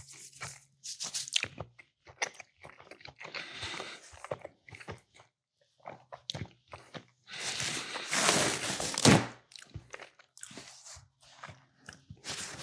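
A person chewing and biting food close to the microphone, with wet mouth sounds coming in irregular bursts. There is a louder stretch of chewing noise about seven to nine seconds in.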